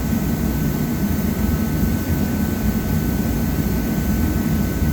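Steady mechanical drone: a low rumble with a faint, thin, steady high whine and no separate knocks or strokes.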